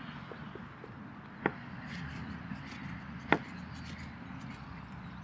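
Rustling handling noise from a hand-held helicopter kite being carried, with two sharp clicks about two seconds apart, the second louder.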